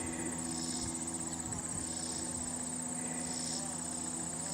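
Crickets chirping: a steady high trill, with short, slightly lower calls repeating about every second and a half.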